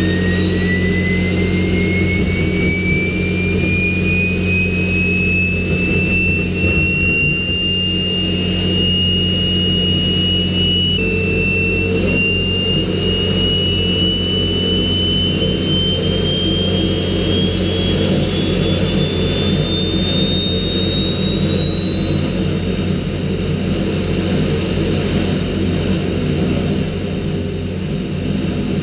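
Homemade centrifugal-compressor turbojet engine running on gas, its rotor whine climbing slowly and steadily in pitch as it spools up, with a brief slight dip about eleven seconds in. A steady low drone runs under the whine.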